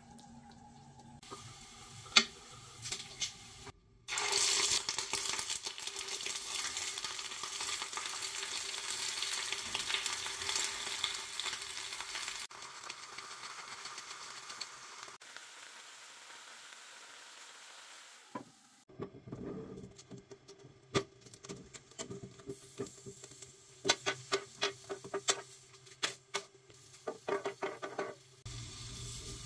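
Food sizzling in a pan for about eight seconds, then a softer hiss. In the second half come many sharp clicks and taps as tomatillos and garlic cloves are set down on a griddle.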